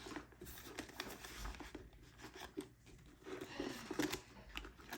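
Paper banknotes and cash envelopes rustling as they are handled and sorted, a string of irregular soft clicks and rustles.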